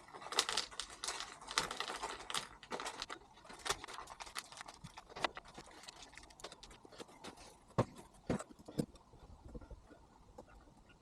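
Small steering-wheel hub parts and screws being handled and fitted by hand on a workbench: dense rustling and light clicking for the first few seconds, then scattered clicks and a few sharper knocks about eight seconds in.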